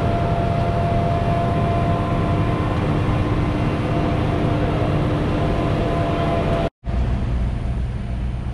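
Steady drone of a large diesel engine running, with a few faint steady whining tones over it. About seven seconds in it cuts off abruptly, and a similar steady low drone follows.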